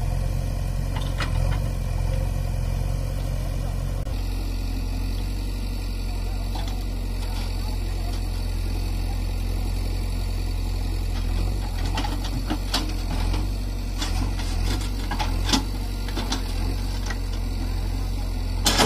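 Diesel engine of a JCB backhoe loader running steadily under work, its note dropping about four seconds in. Scattered sharp clanks and knocks come in the second half and again at the very end.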